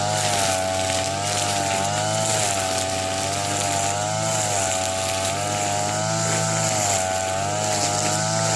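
TB33 two-stroke brush cutter running at high speed through thick grass. Its engine pitch sags and recovers about every two seconds as the cutting head takes the load of the grass.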